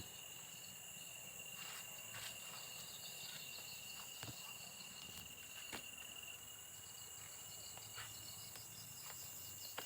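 Steady chorus of crickets and other insects, several high-pitched trills held at once, with a few faint clicks.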